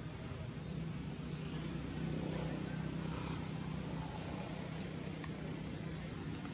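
A steady low hum, like a distant engine, over even outdoor background noise.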